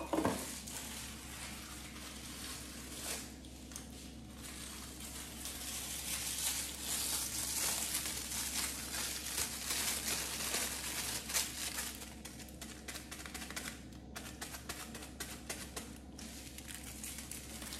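Clear plastic spice packet crinkling and crackling as it is handled and garam masala is tipped out of it, busiest in the middle.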